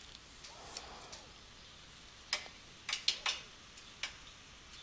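A clarinet bell being handled: scattered sharp clicks and taps, with a quick run of three about three seconds in.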